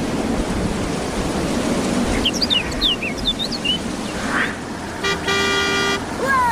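A steady rushing rumble, with a few quick chirps about two to three seconds in, then a horn toot held for about a second near the end, followed by falling whistle-like glides.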